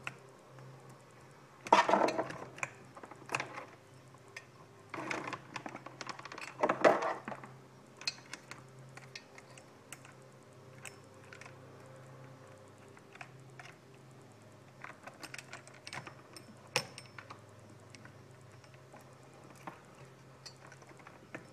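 Saw chain rattling and clinking against the chainsaw bar as it is worked off by hand: a few louder clattering bursts in the first several seconds, then scattered light metallic clicks.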